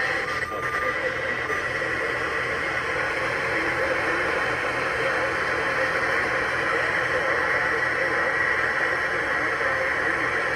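Steady hiss of radio static from a receiver on a weak signal.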